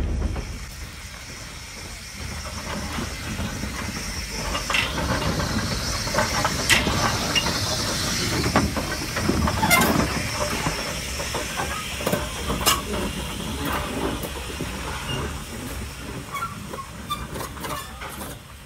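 Hunslet Austerity 0-6-0ST saddle-tank steam locomotive standing with steam hissing steadily, broken by a few sharp metallic knocks.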